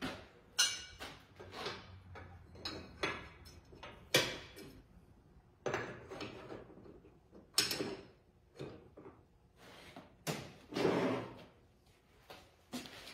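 Metal parts being handled on a workbench: irregular knocks, clunks and clinks as parts, including an aluminium bell housing, are picked up, turned over and set down.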